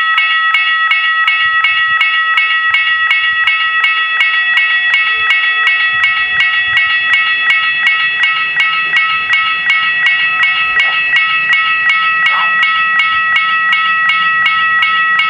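Level-crossing warning bells ringing with fast, even strikes, about three to four a second, while the crossing is closed for a train. A low rumble builds under the bells in the second half.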